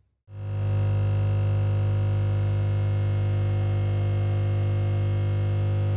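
Capsule espresso machine's vibratory pump buzzing steadily while it brews coffee into a cup. It starts a moment in and cuts off sharply at the end.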